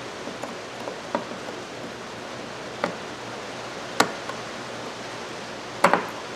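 A few small, sharp metal clicks, spread out, as pliers work at the stubborn retaining clip of a Craftsman 3/8-drive ratchet, over a steady hiss of rain.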